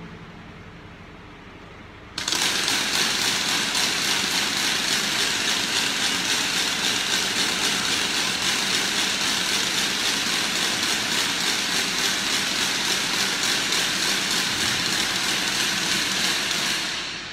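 A loud, steady mechanical rattle with a bright hiss, starting suddenly about two seconds in and fading out near the end.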